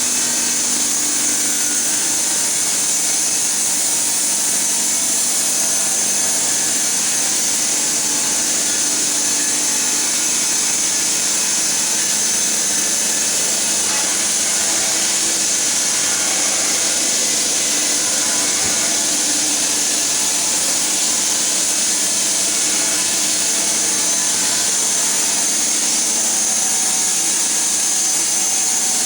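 Log-profiling woodworking machine running steadily, its cutters machining a log into profiled beam, a loud, even high-pitched hiss over a low hum.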